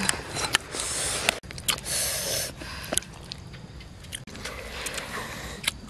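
Crunching and wet squishing of roast pork being handled, in short crackly bursts during the first two and a half seconds, with a few sharp clicks and quieter scraping after.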